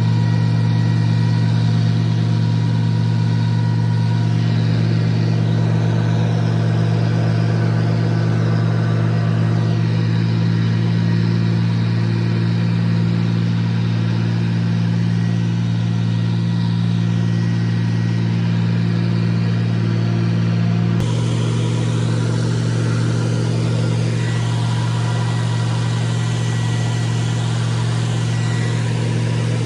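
Oliver tractor engine running steadily at working speed while pulling a seed spreader through the field. The sound shifts abruptly about two-thirds of the way through.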